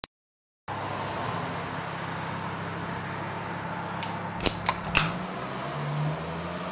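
Steady background hum. About four and a half seconds in comes a quick cluster of sharp clicks and a crack, a drink can's pull tab being snapped open.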